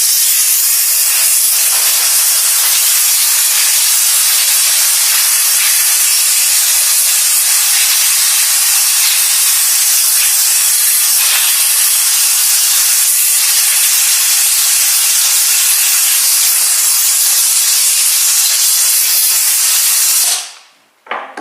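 Compressed air blowing dirt out of a chainsaw part: a loud, steady hiss that cuts off suddenly about twenty seconds in.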